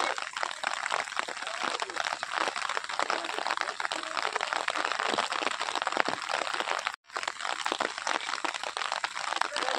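Steady rain pattering, a dense crackle of drops, with a short break about seven seconds in.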